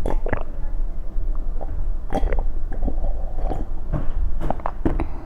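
Close-miked mouth sounds of eating panipuri: crisp puri shells crunching and chewing in scattered bites, over a steady low hum.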